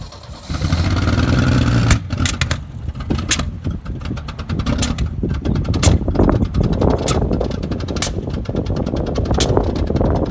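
The XR Ford Falcon ute's old engine running roughly as the ute drives, with an uneven chuffing beat and sharp cracks about once a second. It sounds like a steam train, a sign that the carburettor needs tuning.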